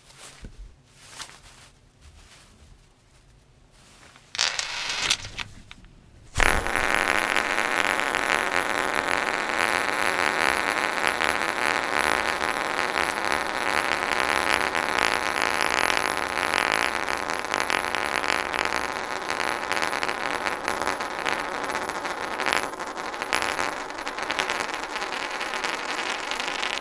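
A pattern-welded (Damascus) steel ring spinning on a wooden tabletop, a continuous metallic rattle and whir. It starts with a sharp clack about six seconds in and runs on steadily until it cuts off near the end. Before it come a few light clicks of the ring being handled.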